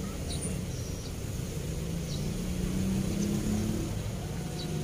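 Low engine hum of passing road traffic, swelling slightly in pitch and loudness in the middle and easing off near the end. A few faint high chirps sound over it.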